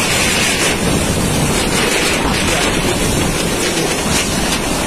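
Typhoon-force wind and driving rain, a loud, steady rush with the gusts buffeting the microphone.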